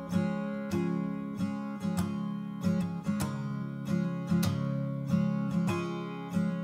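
Acoustic guitar strumming chords in a steady rhythm.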